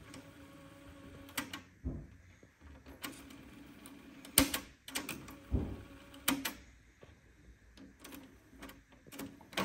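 Transport keys on a Kenwood KX-59CW cassette deck being pressed, with the tape mechanism clicking and clunking as it engages: about eight short clicks at uneven spacing, the loudest a little past the middle.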